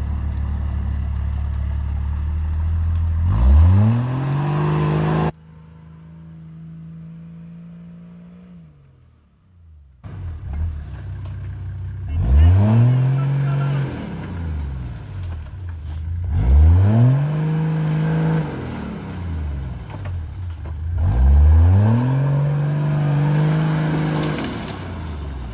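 Toyota Land Cruiser pickup's engine revving under load as it claws up a muddy rutted bank. It gives about four surges, each rising in pitch, holding for a second or two, then dropping back, with a much quieter stretch after the first.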